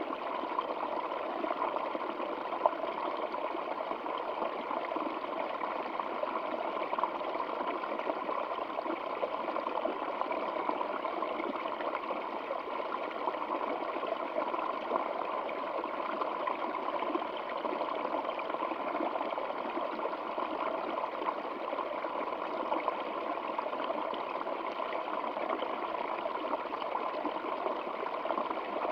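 Stream water flowing steadily: an even, unbroken rush of running water.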